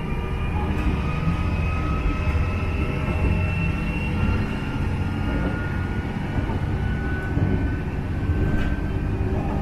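Diesel railcar running along the track, heard from on board: a steady low engine and wheel rumble with a faint whine that rises slightly in pitch, and a few sharp clicks.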